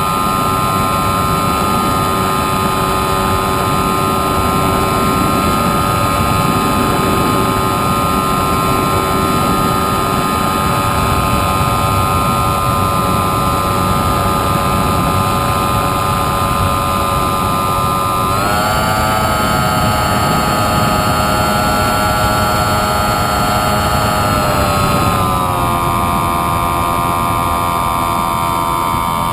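FPV model airplane's motor and propeller running with a steady whine over a rush of air noise. About two-thirds of the way through the pitch steps up as the throttle is opened, holds, then drops back down some six seconds later.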